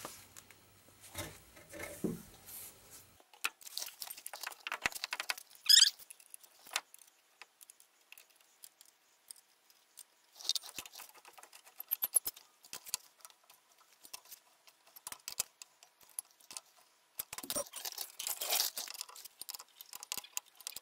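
Scattered metallic clinks and rattles of lug nuts and hand tools, in irregular clusters with quiet gaps, as a car wheel is refitted after a brake job. A short high squeak comes about six seconds in.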